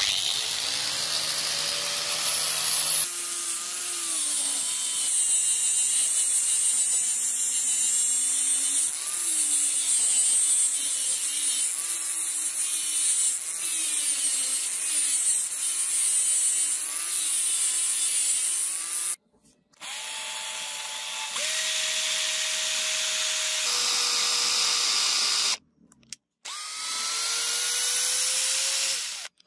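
Handheld power sander with a round sanding disc abrading a rusted steel blade, its motor tone wavering as it is pressed and moved. Near the end an electric drill bores into a wooden block, its pitch rising steadily.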